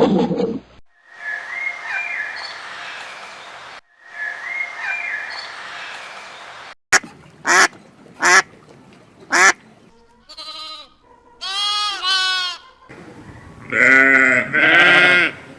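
A run of different animal calls, one clip after another: two similar passages with a brief chirp, then four short sharp calls, then longer pitched calls, the loudest near the end.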